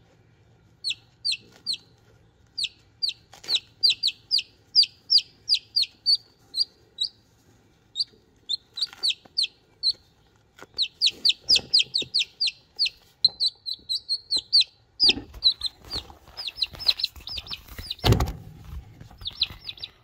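A newly hatched chicken chick peeping loudly and rapidly while it is held: short high peeps, each falling in pitch, come several a second in runs with brief pauses. Rustling comes in the second half, with a thump near the end.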